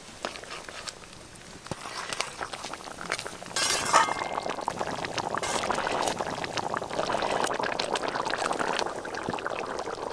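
Thick fish curry boiling hard in a metal kadai: a dense crackling bubbling that builds and jumps louder about three and a half seconds in. A few light clinks of a metal spatula on the pan come near the start.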